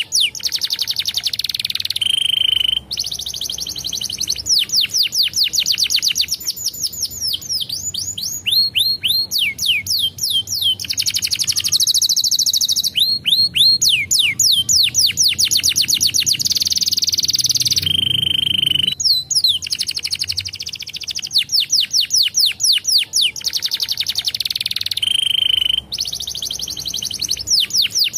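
Domestic canary singing a long, loud song of fast trills: rolls of rapid, evenly repeated down-slurred notes, broken by a few short steady whistled notes and brief pauses.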